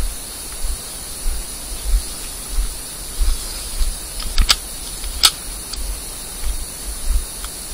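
Wind rush and low, irregular thuds on the microphone of a camera riding a bumpy forest track, with a steady hiss. Two sharp snaps come about four and a half and five seconds in.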